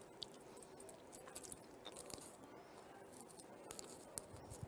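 Near silence: faint room tone with a few small scattered clicks and rustles.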